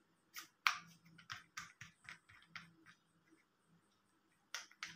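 Plastic clicks and knocks from a selfie stick and phone stand being handled and adjusted: a quick run of clicks in the first couple of seconds, then another cluster near the end.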